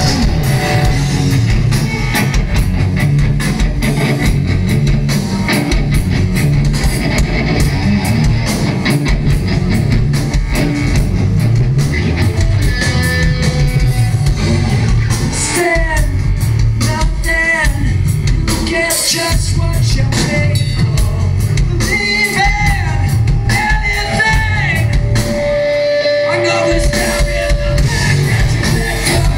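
Rock band playing live and loud: distorted electric guitars, bass and drum kit, heard from within the crowd in a club. A sung vocal comes in about halfway through.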